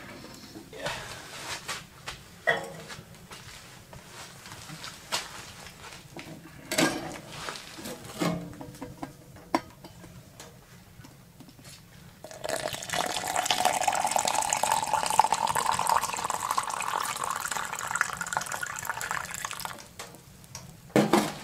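Hot coffee poured from a stainless steel pot into a tall cup: a steady pour whose pitch rises as the cup fills, starting a little past halfway and lasting about eight seconds. Before it, scattered clinks and knocks of the metal pot and lid being handled.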